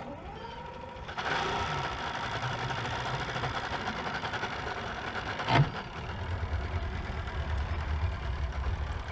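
Outboard motor on a small fishing boat running at idle with a fast, steady mechanical rhythm, louder from about a second in. A single sharp knock comes about halfway through, and a deeper low rumble joins in the later part.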